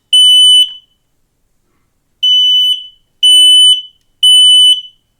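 Kidde 10-year smoke alarm sounding in full alarm: loud, high-pitched beeps about half a second long, spaced a second apart in groups of three. The last beep of one group comes first, then a pause of about a second and a half, then a full group of three. This is the standard three-beep smoke-alarm evacuation pattern, not a low-battery chirp.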